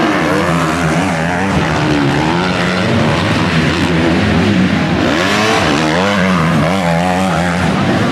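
Several MX2 motocross bike engines running together, loud and steady, their pitch rising and falling as the riders open and close the throttle.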